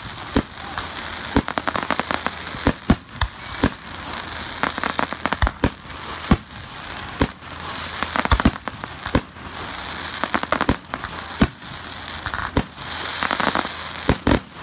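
Fireworks and firecrackers going off: an irregular string of many sharp bangs and pops, some in quick clusters, over a steady crackling hiss.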